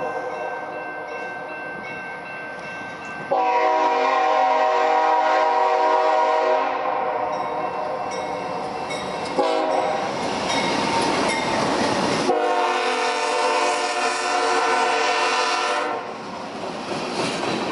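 BNSF diesel freight locomotives sounding a multi-note air horn as they approach and pass. The horn swells much louder about three seconds in and breaks off after about six seconds as the locomotives' rumble goes by. It sounds again for about four seconds, then stops, leaving the rumble and clatter of the cars rolling past.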